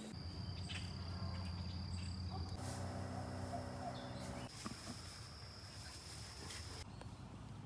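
An insect trilling in one steady high tone that shifts slightly higher about two and a half seconds in and stops near the end, over a low steady hum.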